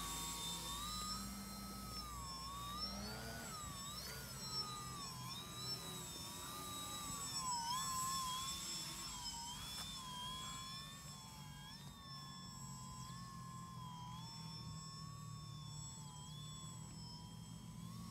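Electric motor and propeller of a Shockflyer Edge profile-foam RC aerobatic plane in flight, a whine that rises and falls in pitch as the throttle changes during manoeuvres. It steadies and gets a little quieter about ten seconds in.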